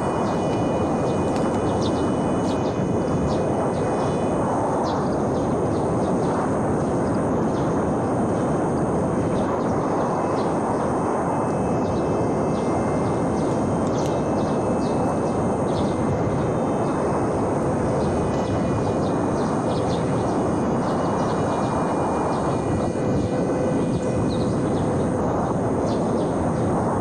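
Steady wind rushing over the microphone by the lake. Through it comes a faint, thin whine that comes and goes: the small brushless electric motor of a foam RC glider in flight.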